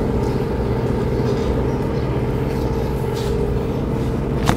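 Steady low rumble and hum of an engine idling, with a brief knock near the end.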